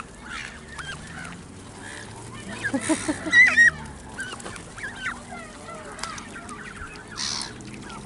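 A flock of Canada geese honking, many short calls overlapping, with a louder burst of honks about three seconds in.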